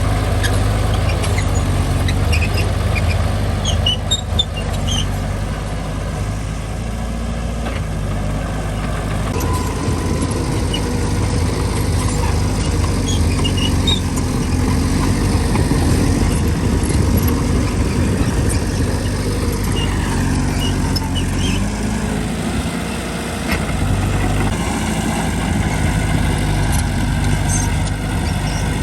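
Mini bulldozer's diesel engine running under working load, its pitch shifting as the load changes, with a brief drop a little past the three-quarter mark before it picks up again. Short high squeaks are scattered through it.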